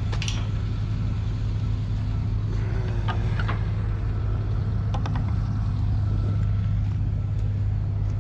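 Vehicle engine idling steadily, with a few light knocks and clanks as scrap metal is thrown out of the load.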